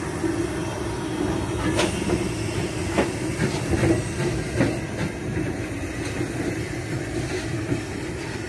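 Hunslet Austerity steam locomotive No. 2890 passing close by, running light with no coaches: a steady rumble and drone with sharp clicks and knocks from the wheels and motion at irregular intervals, easing slightly as it draws away.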